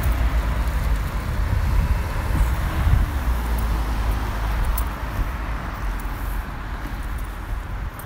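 Road traffic: a steady rumble of cars moving along the street.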